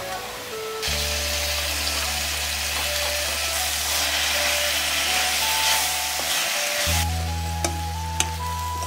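Onions, green chillies and chilli paste sizzling in a hot wok while being stirred with a wooden spoon. The sizzle starts about a second in and drops away about a second before the end, and two light clicks follow near the end. Background music plays throughout.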